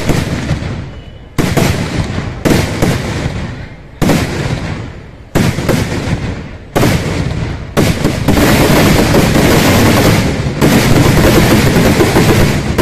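A row of ground-laid festival firecrackers going off in sequence: loud single blasts about every second or so, each echoing away, then about two-thirds of the way in they merge into a continuous rapid barrage of bangs.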